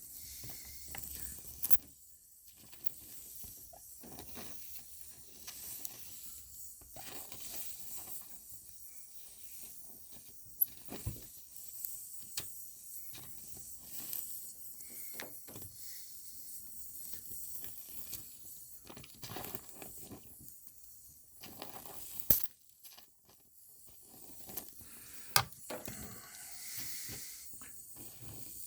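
Stick welder arc crackling and hissing on and off as a thin welding rod fills a burned-through hole in thin sheet metal, with a few sharp pops.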